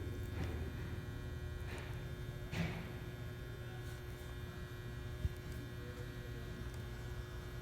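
Steady electrical mains hum, with a few faint brief sounds, a louder short one about two and a half seconds in, and a single sharp click a little after five seconds.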